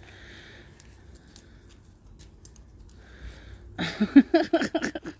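An animal giving a quick run of short yelping calls, about eight a second, each rising in pitch, starting about four seconds in and stopping abruptly. Before it there are only faint breathy sniffs.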